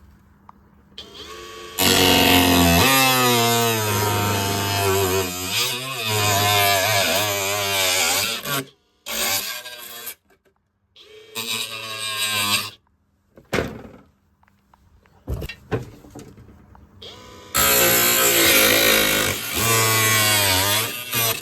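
Electric power sander working on the boat's fibreglass, running in bursts of a few seconds with sudden starts and stops and a wavering motor pitch as it is pressed onto the surface.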